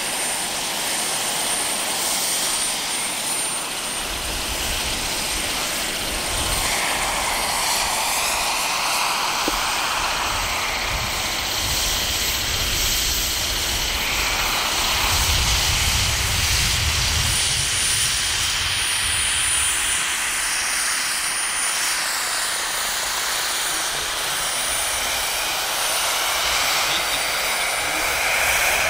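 Turbine-powered radio-controlled model helicopters in flight: a steady high turbine whine over rotor noise, with the pitch of the whine gliding up and down as the helicopters fly past.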